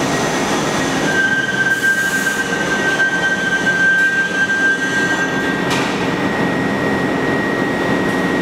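NYC subway train running through the station, its steel wheels squealing on the rails over a steady rumble. The squeal is a high steady whine, with a second, louder tone from about a second in until near six seconds.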